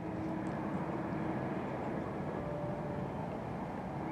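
Boeing 787-8 on final approach, its Rolls-Royce Trent 1000 engines a steady low rumble with a faint hum.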